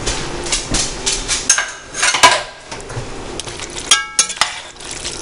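Utensil scraping and clinking against a pot of pasta as crushed pineapple is mixed in, with a few sharp clicks and a short cluster of ringing clinks near the end.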